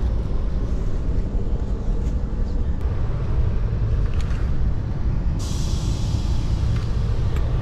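Howrah Rajdhani Express coach running, heard from inside a sleeper berth: a steady low rumble of the wheels on the track, with a few light clicks. A hiss comes in about two-thirds of the way through and keeps going.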